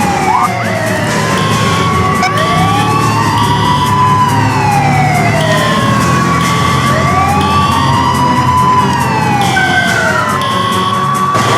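Several fire truck sirens wailing at once. Slow rising and falling wails overlap out of step over a low engine rumble, with short high tones repeating in pairs.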